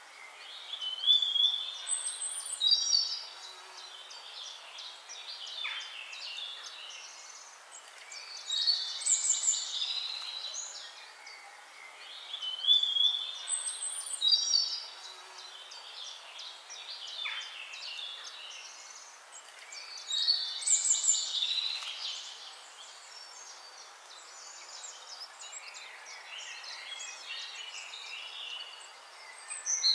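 Songbirds singing: bursts of high chirps, whistles and trills come in loud spells every few seconds, with quieter chirping between them. The same song phrases recur about every twelve seconds.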